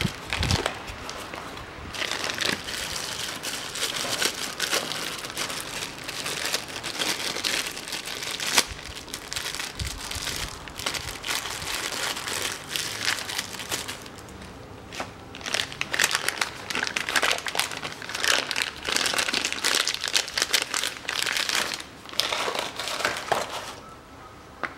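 Clear plastic packaging bag crinkling and rustling in repeated bursts as a new part is unwrapped by hand, with a short lull about halfway through.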